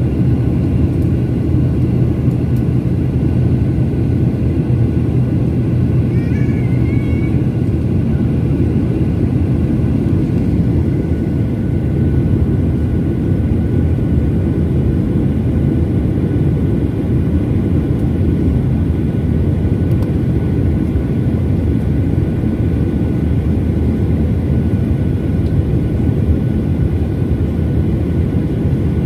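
Steady low cabin rumble of a Boeing 737 airliner in flight, engine and airflow noise holding even throughout.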